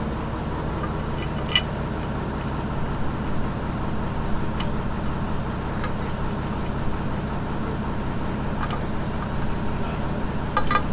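A vehicle engine running steadily at idle, with a few faint clicks or knocks over it.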